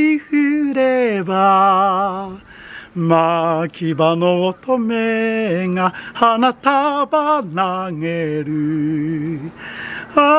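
A man singing unaccompanied, with long held notes and vibrato.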